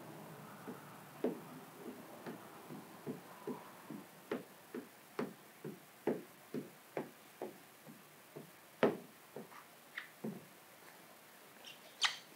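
Hand-held squeegee being pushed over wet paint protection film on a car's front fender, in a run of short strokes about two a second. A brief higher squeak near the end.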